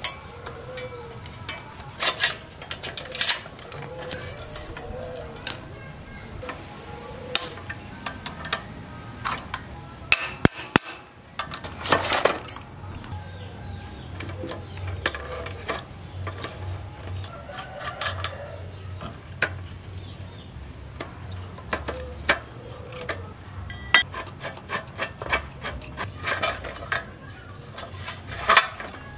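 Scattered metal clinks, knocks and rattles of an adjustable wrench and bicycle parts as a full-suspension bicycle frame is taken apart by hand.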